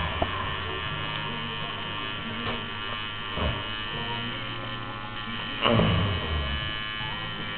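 Electric tattoo machine buzzing steadily, its low hum dropping out briefly a couple of times. A short, louder noise breaks in about two-thirds of the way through.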